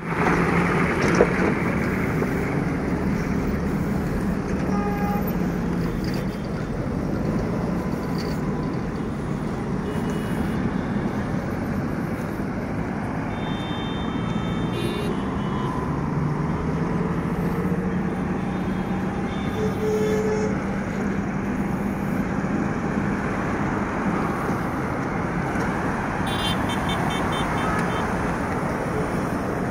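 Nissan Patrol Y61 turbo diesel running steadily as the SUV drives over dirt and mounds, its drone rising a little in pitch about halfway through. Short horn toots sound in the background.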